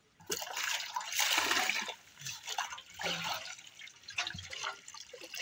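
Water splashing and pouring as a plastic mug scoops water from a shallow river, in several bursts, the loudest about a second in.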